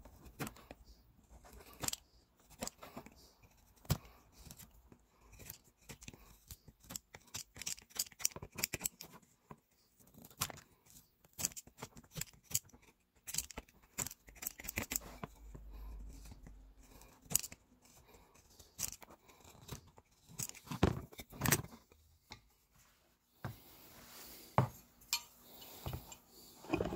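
Knife blade shaving and whittling a wooden block into a tool handle: many short, irregular scraping cuts.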